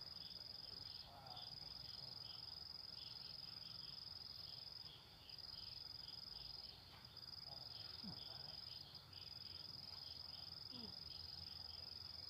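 Insects trilling in a steady high-pitched chorus that breaks off briefly a few times, with a faint pulsing trill just beneath it.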